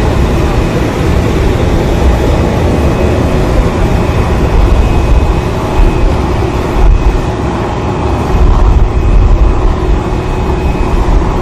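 Steady loud jet aircraft noise on the apron: a constant deep rumble with a thin, steady high whine over it.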